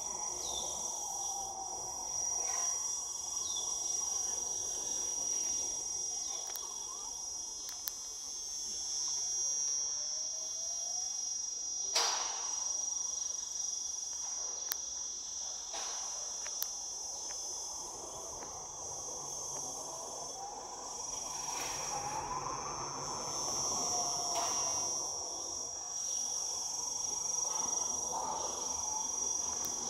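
Steady high-pitched drone of insects, unbroken throughout, with a few faint gliding whistles and a sharp click about twelve seconds in.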